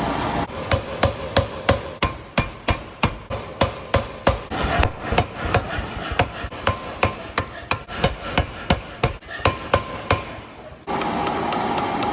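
Power hammer striking steel as a karambit blade is forged: a steady run of sharp blows, about three a second. The blows stop about ten seconds in, and a steady noise returns about a second later.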